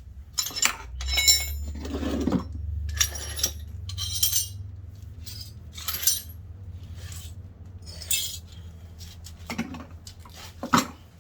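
Metal tools and car parts clinking and knocking as they are handled and set down, a dozen or so separate clinks. A low rumble runs under the first few seconds.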